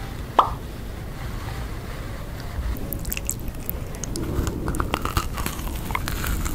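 Close-miked biting into a macaron: small crisp cracks of the shell and wet mouth sounds from about halfway through, over a steady low rumble. A single short sharp sound stands out near the start.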